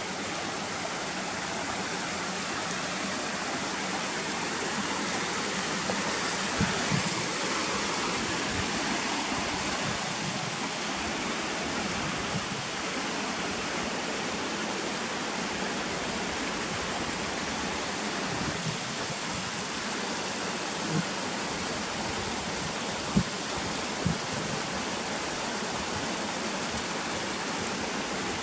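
Rushing water of a mountain stream, a steady even rush, with a few faint knocks now and then.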